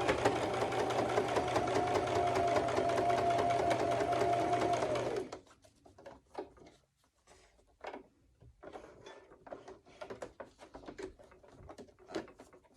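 Sewing machine stitching at a steady speed, top-stitching through fabric layers, then stopping about five seconds in. Faint clicks and rustles follow.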